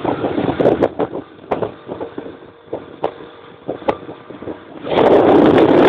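Riding in a moving vehicle: a low rumble with irregular knocks and rattles, then wind suddenly buffeting the microphone loudly near the end.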